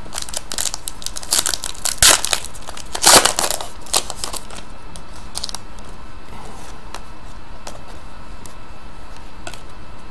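Plastic-foil wrapper of a trading-card pack crinkling and crackling as it is torn open and handled, in bursts during the first four seconds, loudest about three seconds in, then only a few faint clicks.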